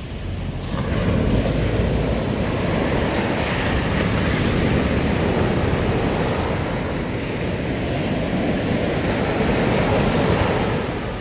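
Ocean surf breaking and washing up the beach close by, with wind buffeting the microphone; a steady rush that swells and ebbs with the waves.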